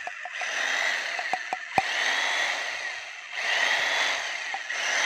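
Electric 900-watt demolition breaker hammer running with nothing under its bit, the motor's whine rising and falling. The owner takes it as a sign that the piston inside is pumping well. It dips briefly about three seconds in, and a few sharp clicks sound around the middle.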